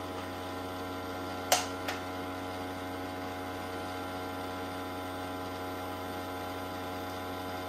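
Battery-powered blower fan in the base of a Sharper Image Gravity Z3 target game running steadily, a motor hum with several steady tones. About a second and a half in comes a sharp click from the handheld toy blaster, then a fainter one.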